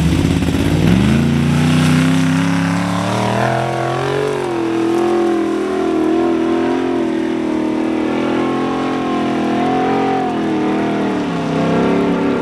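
Formula Offroad buggy's engine launching from the start line on a hill climb. Its revs rise steeply about a second in, then hold high, rising and dipping as the car claws up the steep sand-and-gravel slope on paddle tires, and climb again near the end.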